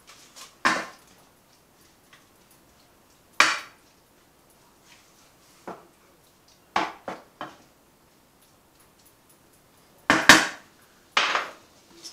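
Wooden spoon knocking and scraping against a frying pan while diced beef is stirred to brown. About eight short clatters come at uneven gaps, three in quick succession midway and the loudest near the end, with almost nothing heard between them.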